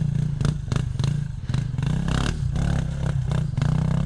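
Two-stroke dirt bike engine running and revving up and down as it rides, with repeated clattering knocks over rocks.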